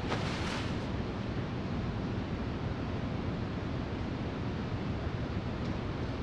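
Steady background noise, an even hiss and low rumble with no distinct event, with a short soft rush in the first half second.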